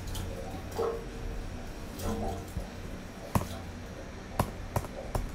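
Computer keyboard and mouse clicks over a low steady hum: one sharp click, then about a second later three quick keystrokes roughly half a second apart.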